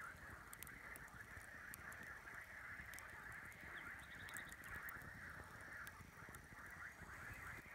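Campfire crackling with scattered sharp snaps, over a dense, steady chorus of animal calls.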